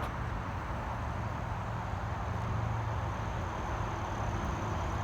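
Steady outdoor background noise with a low rumble, like distant traffic or wind, and no distinct events.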